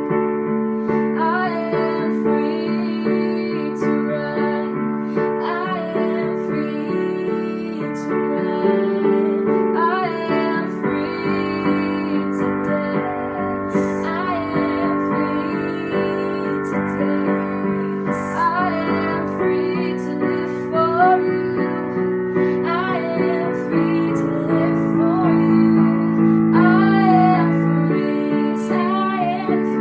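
Worship song: a woman singing over sustained keyboard and piano chords.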